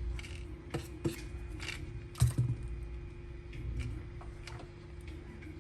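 Light clicks and taps of small tools and wires being handled during soldering work, the loudest a little over two seconds in, over a steady low hum.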